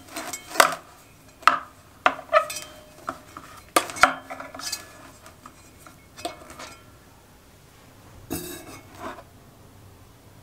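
Thin steel wire clinking and scraping against a rusty cast iron Dutch oven as it is twisted around the pot's handles: a string of sharp metallic clinks over the first few seconds. About eight seconds in there is a short scraping rattle of the pot being handled.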